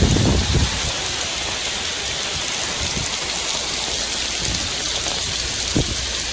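Heavy tropical rain pouring down hard in a steady, dense hiss. A few low rumbles of strong wind gusting onto the microphone break through it, the biggest right at the start.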